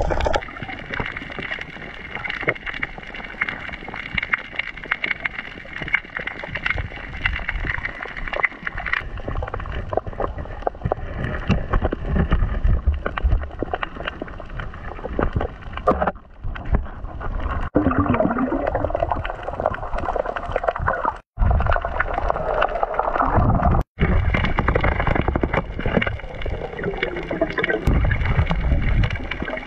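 Underwater sound picked up by a camera in the water: a steady rush and gurgle of water with a low rumble and many scattered clicks, and a few bending, bubbly sweeps in the second half.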